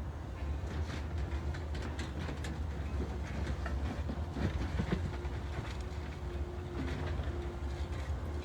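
Heavy diesel machinery, most likely the backhoe loader's engine, running at a steady low rumble with scattered metallic knocks and clanks.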